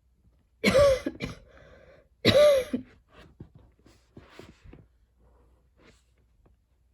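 A woman coughing: two loud coughs about a second and a half apart, then fainter short sounds. It is a lingering cough with heavy breathing and throat tickles.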